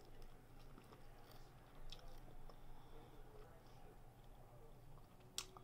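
Faint chewing of a mouthful of crab rangoon, with a few soft clicks from the mouth.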